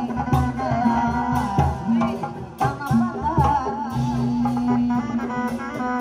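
Sundanese folk band music: an ornamented, wavering melody over a held low drone, with hand-drum strokes about every half second.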